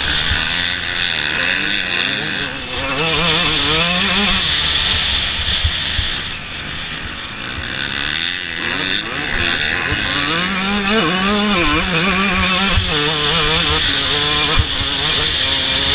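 Yamaha YZ125 two-stroke motocross engine racing, its revs climbing and dropping again and again as the rider accelerates, shifts and backs off. A steady wind rush from the helmet-mounted camera runs under it.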